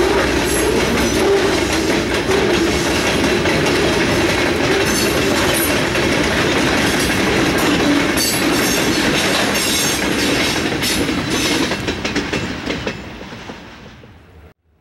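Freight train of covered hopper cars rolling past, steel wheels clattering over the rail joints in a steady run of clicks. The sound fades out over the last couple of seconds.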